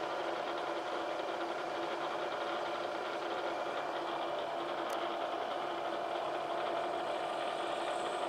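Bridgeport vertical milling machine running steadily with an even hum, with a faint click about five seconds in.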